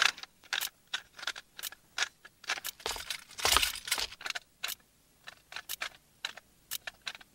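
Small metal tools clicking and clinking against a bomb as it is being defused, a few sharp clicks a second at uneven intervals, with a louder clatter about three and a half seconds in.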